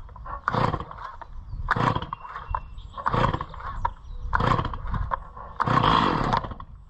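Stihl chainsaw being pull-started on choke: the starter cord is yanked about five times, a short whirring burst with each pull, roughly one every second and a quarter, and the engine does not yet run. A cold start of a saw that has sat for months.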